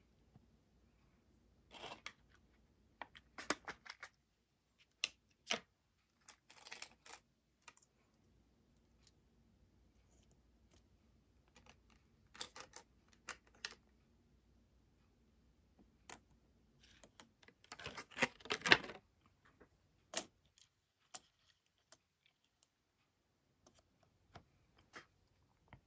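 Light plastic clicks, taps and brief rustles of small plastic items and packaging being handled, with a denser, louder flurry of rustling and clicking about 18 seconds in.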